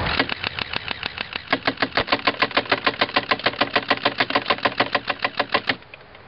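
Robot-mounted automatic airsoft gun firing full-auto: a rapid, even stream of shots, about eight a second, for over five seconds, then cutting off abruptly near the end.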